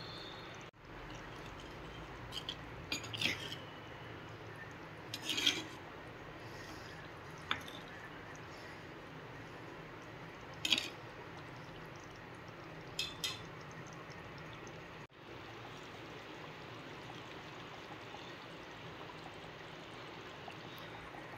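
Goat brain curry simmering in a clay pot: a steady hiss of bubbling with a few sharp pops or clicks now and then.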